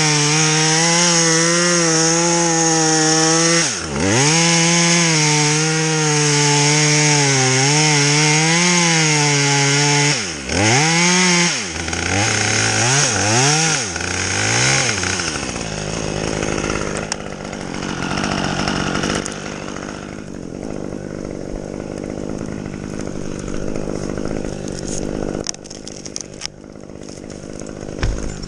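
Two-stroke chainsaw run at high revs while cutting, its pitch dropping sharply twice as it bogs, then a few quick throttle blips before it settles into a quieter, steady low running note.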